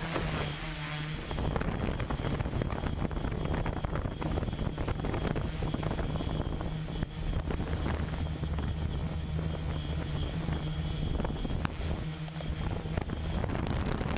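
Large engine running with a steady low drone, typical of heavy construction machinery at work.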